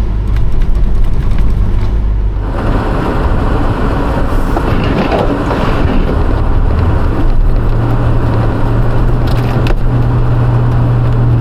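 Plow truck's engine running as it drives through deep snow with its 9-foot blade. About two and a half seconds in, a loud rushing hiss of snow and tyres joins the steady engine hum, and the engine note grows stronger in the second half.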